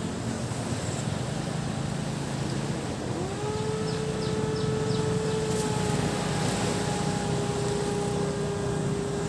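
Surf washing on a sandy beach under a steady low engine hum. About three seconds in, a motor's tone rises in pitch and then holds steady.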